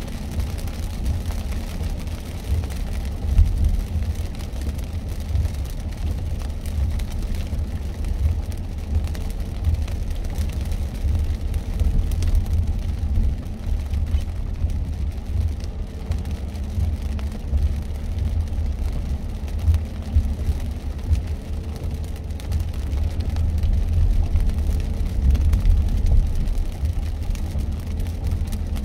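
Car driving along a rain-wet expressway: a steady, deep road and tyre rumble with a fainter hiss of rain and wet spray.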